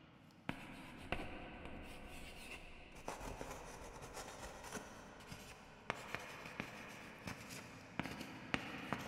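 Chalk writing on a blackboard: a scratchy rubbing of the stick across the board, broken by a series of sharp taps as the chalk strikes the surface.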